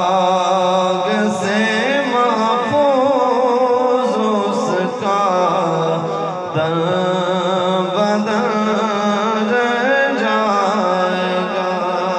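A man sings a devotional Urdu naat solo into a microphone over the sound system, in long wavering, melismatic notes.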